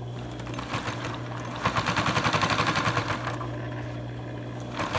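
Singer 300W101 industrial double-chainstitch sewing machine stitching at speed in two runs of fast, even clatter: one starting about one and a half seconds in and lasting about a second and a half, another starting near the end. A steady hum runs underneath.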